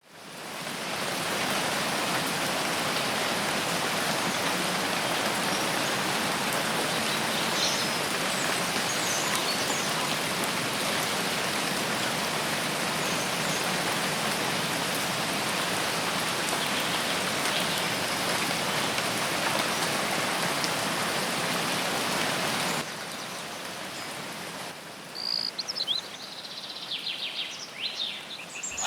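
Heavy rain falling steadily, with a few faint bird chirps through it. About 23 seconds in the rain noise drops suddenly to a quieter level, and birds chirp more clearly near the end.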